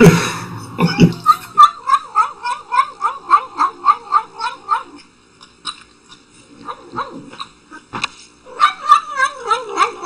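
Domestic cat giving a run of short, rapid yowling calls, about four a second, that stops after about five seconds and starts again near the end. There are two loud thuds in the first second, and a few soft clicks in the quiet stretch between the calls.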